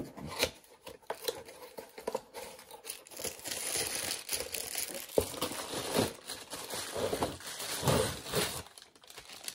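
Cardboard and plastic packaging rustling and crinkling as a boxed recording stand is opened, with scattered irregular clicks and one sharp click about halfway through.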